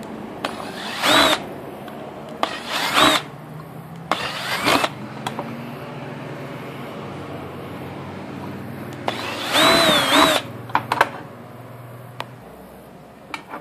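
Electric drill running with a 5/32-inch bit, enlarging holes in the thin metal side of an Altoids mint tin. Over the steady hum of the motor come several short, pitched screeches as the bit bites into the metal, the longest and loudest about ten seconds in. The motor stops near the end.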